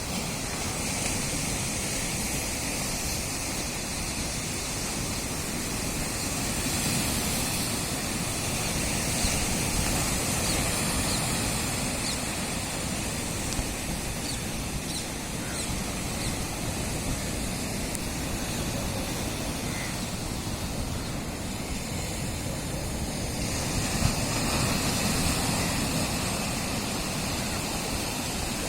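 Sea waves breaking and washing up on the shore, a continuous rush that swells louder twice: about a third of the way in and again near the end.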